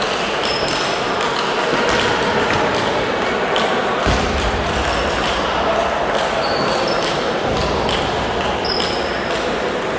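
Table tennis balls clicking off bats and tables, several rallies at once: irregular sharp taps over a steady murmur of hall noise.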